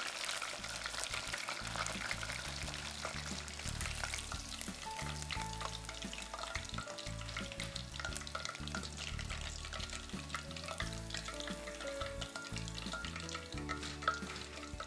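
Battered pork tenderloin pieces deep-frying in hot oil: a dense, steady crackle of many small pops. Background music plays along with it.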